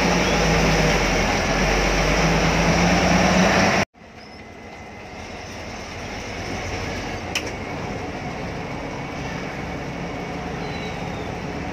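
Cabin noise of a moving Telangana RTC Rajadhani air-conditioned bus: the engine's steady low hum and road noise, loud at first, then after an abrupt cut about four seconds in, quieter and slowly building again. A single sharp click sounds a little past the middle.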